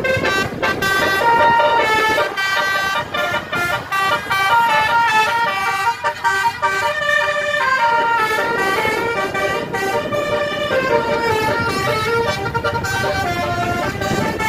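Telolet basuri multi-tone bus horn playing a tune: a continuous run of loud horn notes, stepping from one pitch to the next several times a second.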